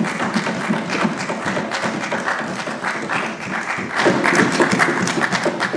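Applause: a group of people clapping, a dense patter of many hands that grows louder about four seconds in.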